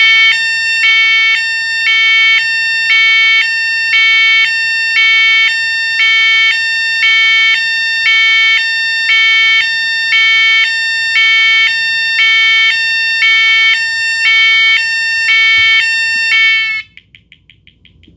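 Fire alarm sounder, set off from a pull station, sounding a loud two-tone hi-lo signal that switches between a high and a low pitch about once a second, like an ambulance. It cuts off suddenly near the end.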